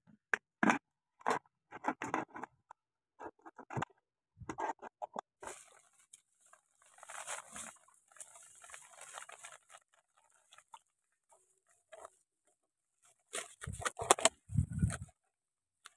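Thin plastic water bottle crackling and crinkling as it is cut with a small blade and handled, along with rustling of dry grass stems: irregular short clicks and scratchy rustles, louder near the end.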